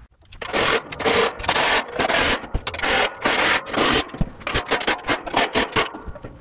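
Cordless impact driver running nuts onto the bolts of a plow blade's cutting edge in a string of short rattling bursts, which turn shorter and quicker about four seconds in.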